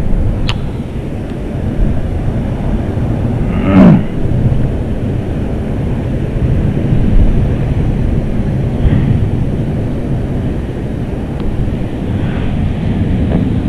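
Wind buffeting the microphone over choppy surf water, a steady low rush. About four seconds in there is one sharp, loud hit.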